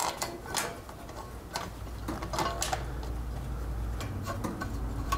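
Light metallic clicks and taps of carburetor mounting bolts being handled and threaded in by hand, with a low steady hum beneath them.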